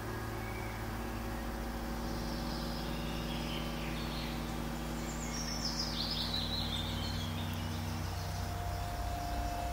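Fantasy ambience soundscape: a low steady drone of several held tones, which changes near the end, with high chirping sounds over it, the clearest a falling run of chirps about five to six seconds in.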